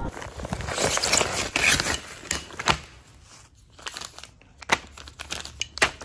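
Clear plastic parts bags crinkling as hands turn over and sort the bagged drone frame parts, busiest in the first half, then a few sharp clicks near the end.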